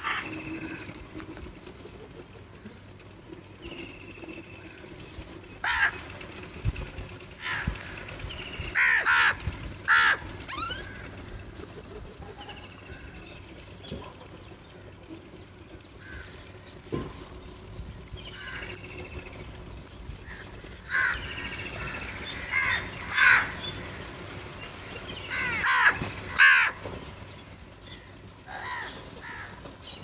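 A flock of house crows cawing, with quieter calls in between and loud clusters of caws about a third of the way in and again through the last third.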